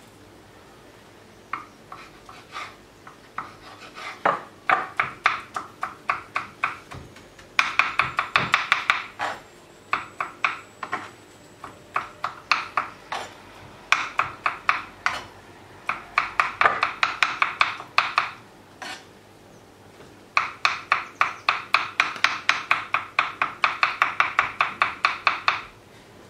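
Kitchen knife chopping soft roasted, peeled eggplant on a wooden cutting board: runs of quick knocks of the blade on the board, about four or five a second, with short pauses between runs.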